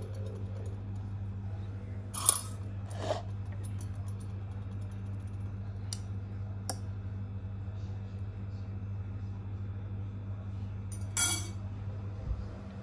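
A metal fork clinking against a ceramic bowl of instant noodles and carrot slices: about five short clinks, the loudest about two seconds in and near the end. A steady low hum runs underneath.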